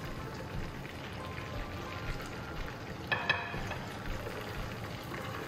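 French fries deep-frying in a small saucepan of hot oil, with a steady sizzle. About three seconds in, metal tongs clink twice against the pot.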